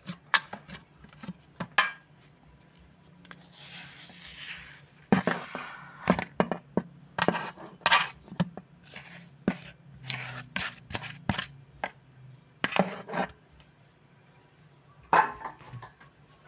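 Irregular knocks and clatter against a stainless-steel ice cream canister as ice cream is packed into it by hand, with a scraping stretch about four seconds in.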